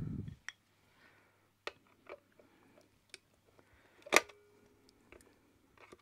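Scattered light clicks and taps of a screwdriver and metal parts on a Hoover Senior vacuum's motor housing as its top cap is being undone, with one sharper click about four seconds in.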